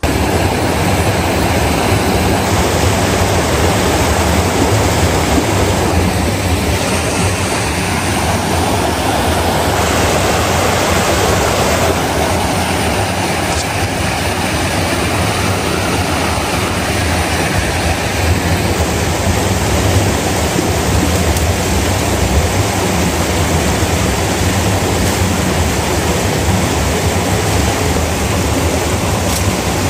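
Steady, loud rushing of a rocky mountain stream, an even hiss of water that cuts in suddenly at the start and holds unchanged throughout.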